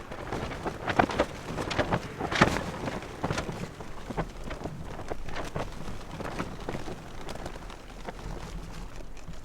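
Wind rumbling on the microphone, with irregular crackling and rustling.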